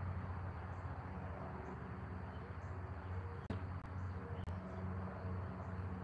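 Backyard ambience: a steady low hum with faint high chirps from small birds or insects, and two short clicks about a second apart near the middle.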